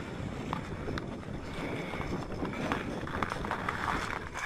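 Wind rumbling on the microphone, with a few short splashes of water.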